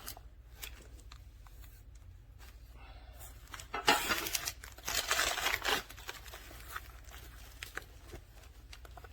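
Weighted vest's fabric pocket and straps being handled while weight plates are slid into it: scattered light clicks, then two rasping bursts about four and five seconds in.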